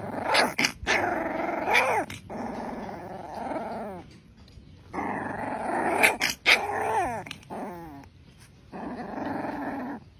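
Puppy growling in three bouts while it mouths and bites a person's hand, the growls wavering up and down in pitch with a few short yips.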